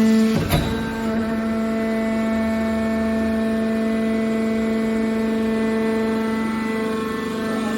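Hydraulic metal press baler running with a steady, even-pitched whine, with one sharp metallic bang about half a second in.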